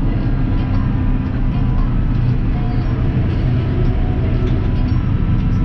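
Massey Ferguson tractor engine running steadily on the road, towing two hitched trailers.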